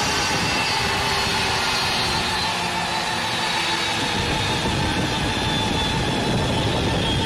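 F-22 Raptor's twin Pratt & Whitney F119 turbofan engines idling on the ground: a steady jet roar with a thin turbine whine over it.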